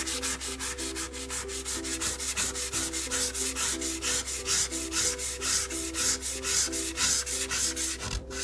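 Sandpaper being rubbed by hand over the rusty steel blade of an old Warranted Superior handsaw in quick back-and-forth strokes, several a second, stopping shortly before the end. The paper scratches and bites cleanly because the oil and grime have been scraped off the blade.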